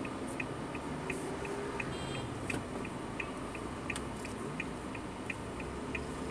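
Even ticking of a vehicle's turn-signal flasher, about three ticks a second, over the steady low hum of the vehicle's engine while it turns at a junction.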